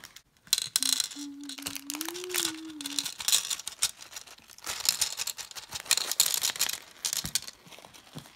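Plastic pony beads pouring from a plastic bag into a hard plastic compartment tray, a dense rattling patter of small clicks mixed with the bag crinkling.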